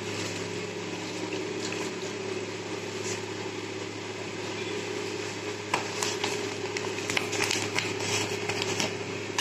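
Steady low hum with a few light clicks and taps of utensils from about halfway in, as spices are added to chicken marinating in curd.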